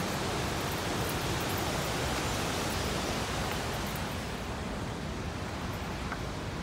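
Steady rushing roar of the Great Falls of the Passaic River, its top hiss dropping away after about four and a half seconds.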